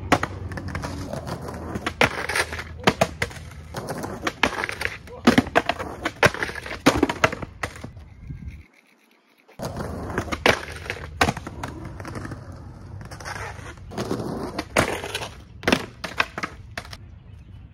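A skateboard rolling on concrete pavement, with repeated sharp pops, slaps and clatters as the board is popped, lands and knocks against the concrete during trick attempts. There is a short break to near silence about nine seconds in.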